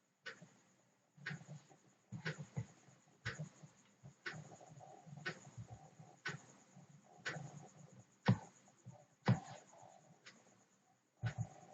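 Steady ticking, about one tick a second, over faint low background noise.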